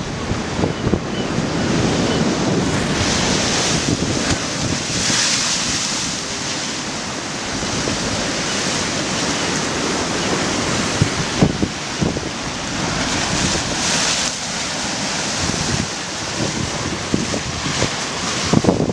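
Storm surf breaking and washing in at a very high tide, with strong wind buffeting the microphone. Several surges of hiss from breaking waves rise and fall over a steady low rumble of wind.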